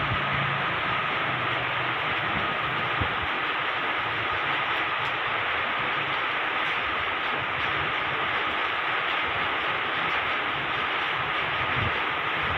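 Heavy rain pouring down steadily, an even unbroken hiss.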